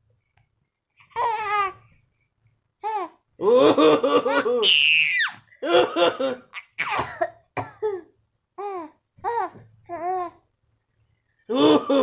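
A baby laughing in a run of short bursts at a man's coughing, with coughs in between. The longest bout ends in a high squeal about five seconds in.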